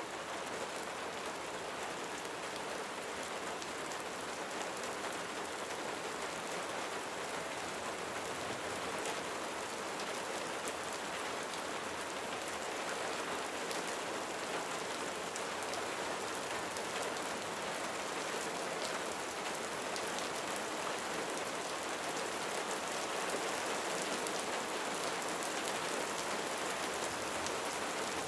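Steady rain drumming on a roof, an even hiss dotted with countless small drop ticks, growing slightly louder toward the end.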